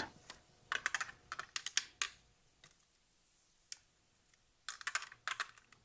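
Light plastic clicks and taps as a chrome plastic radiator grill panel and its LED light housing are handled and fitted against each other: a cluster about a second in, a couple of lone ticks, and another cluster near the end.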